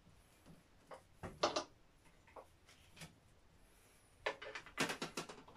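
Light plastic knocks and clicks as a clear plastic terrarium lid and its light cable are handled: a couple of knocks about a second in, then a quick run of clicks near the end.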